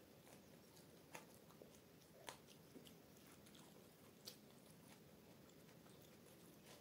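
Faint close-miked chewing with the mouth closed, a mouthful of multigrain paratha and saag. A few short sharp clicks stand out over a steady low hiss.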